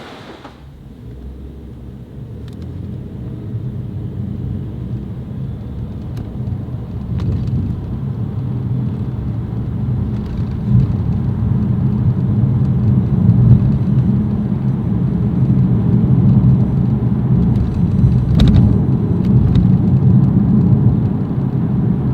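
Car driving on the road, a low steady rumble of engine and tyres that builds as it gathers speed, then holds.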